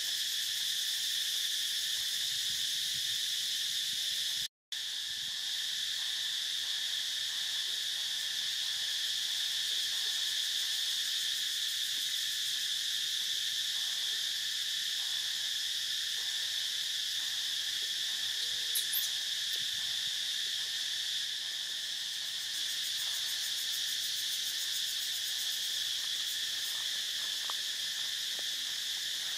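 Steady insect chorus, a constant high-pitched buzzing drone. It cuts out completely for a moment about four and a half seconds in.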